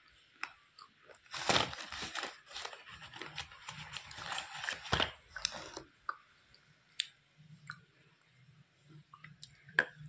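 Close-up crunching and chewing of a hard, chalk-like clay stick. A dense run of gritty crunches starts about a second in and lasts some five seconds, then gives way to a few single sharp crunches near the end.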